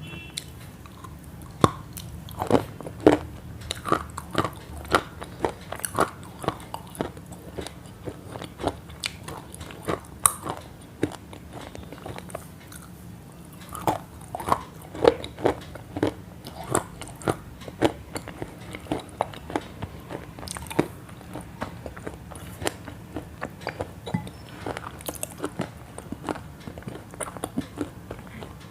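Crunchy food being bitten and chewed: an irregular run of crisp crunches, a few a second, with a short pause about midway.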